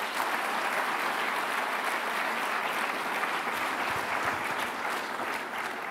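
A large audience applauding steadily, tapering off near the end.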